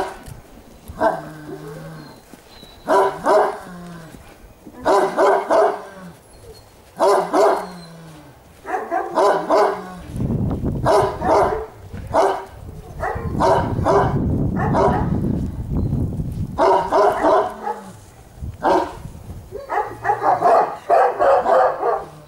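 Central Asian Shepherd Dogs (alabai) barking repeatedly, in single barks and short runs about every two seconds. A low rumble runs under the barks for several seconds midway.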